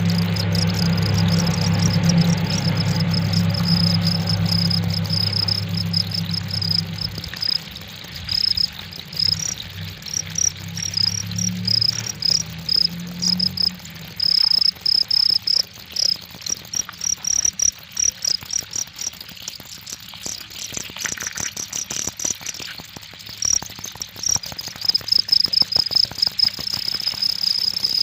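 Crickets chirping in a high-pitched pulsing trill, broken into short bursts in the middle and steadier near the end. A low steady hum runs underneath for the first several seconds, then fades out.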